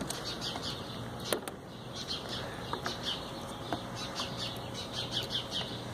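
Small birds chirping in quick runs of short, high notes, with a couple of faint clicks.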